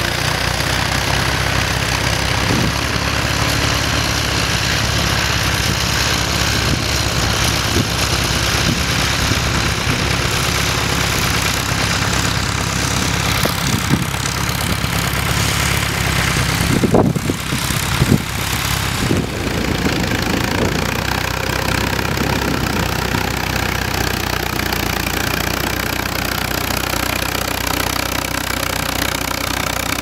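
Case Model C tractor's four-cylinder engine running steadily under load as it pulls a plough, with a few sharp knocks a little over halfway through.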